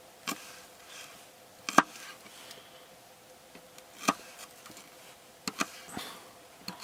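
Kitchen knife chopping on a cutting board in slow, irregular strokes, about seven sharp knocks with the loudest about two seconds in, as an ingredient is minced by hand.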